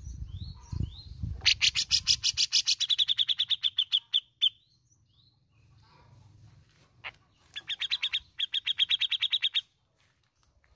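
Grey-cheeked bulbul (cucak jenggot) calling: a few short rising chirps over a low fluttering rumble, then two rapid rattling trills of about ten notes a second, near the start and again near the end. This is the chattering 'besetan' and 'ngepik' call.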